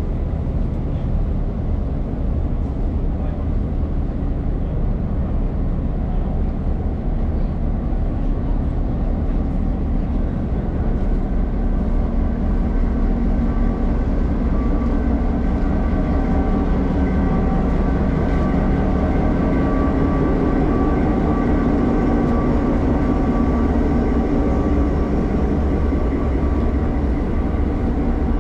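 Heritage diesel locomotive running, a steady low drone of engine tones that grows louder about a third of the way in.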